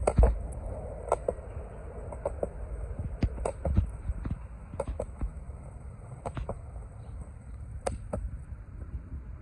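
Penny board's wheels rolling over a paved path: a steady low rumble with irregular sharp clicks.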